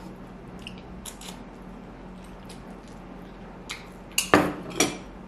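A person eating noodles with metal chopsticks: soft chewing and a few light clicks, then a cluster of loud, short mouth noises about four seconds in.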